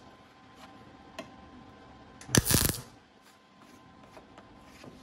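MIG welder laying a single short tack weld on an 18-gauge steel patch panel: a brief crackling burst of arc lasting under half a second, about halfway through. A few faint clicks come before it.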